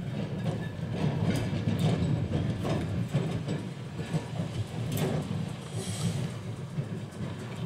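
Vintage Melbourne electric tram No. 670 rolling slowly over yard trackwork, its steel wheels clicking and knocking over rail joints and points above a low running rumble. A brief hiss comes about six seconds in.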